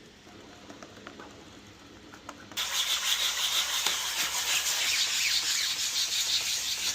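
Sanding: a surface being sanded, starting abruptly about two and a half seconds in as a loud, continuous scratchy hiss, after a few faint handling noises.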